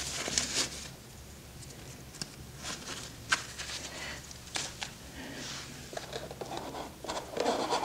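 Hands handling accessories in a padded carrying case: scattered small clicks, taps and rustles of plastic parts and fabric, over a faint low hum.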